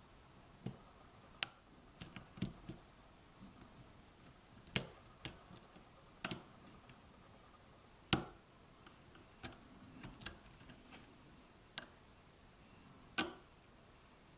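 Pick and tension wrench working the pin tumblers of an Abus 83/45 padlock's cylinder: faint, irregular sharp clicks and ticks as pins are lifted and set, about fifteen of them spread unevenly.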